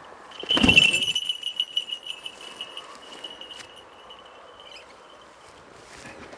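A brief loud rush of sound about half a second in, then a small metal bell jingling rapidly, its high ringing fading away over about four seconds.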